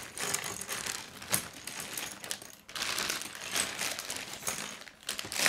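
Clear plastic bag crinkling as it is opened and handled, with scattered sharp clicks of plastic K'nex pieces knocking together.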